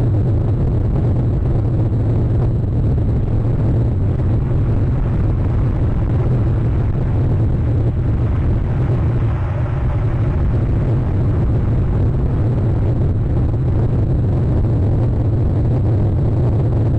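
Steady, loud low rumble with a fainter hiss above it, swelling slightly about eight to ten seconds in.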